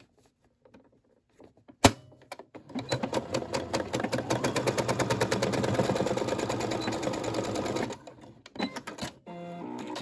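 A computerized sewing machine gives a sharp click, then stitches rapidly. It builds up speed and runs steadily for about five seconds before stopping, with a few clicks and a short whir near the end. It is sewing cotton thread across a fabric corner, and the thread bunches into a tangled 'rat's nest' underneath.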